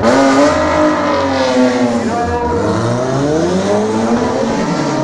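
Rear-wheel-drive competition car's engine at high revs, its pitch falling, dipping about two seconds in, then climbing and falling again as it accelerates and changes gear.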